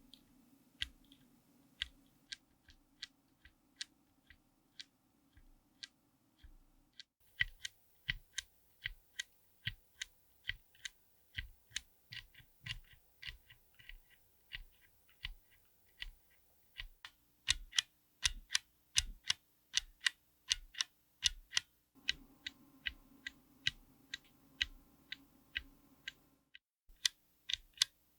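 Tactile mechanical keyboard switches being pressed one at a time in a steady run of crisp keystrokes, a few a second. The run is split into several short takes with abrupt cuts between them, as one switch or keycap setup gives way to the next.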